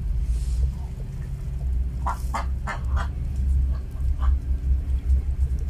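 Newborn puppies squeaking: a quick run of four or five short, high squeaks about two seconds in, then one more a second later, over a steady low rumble.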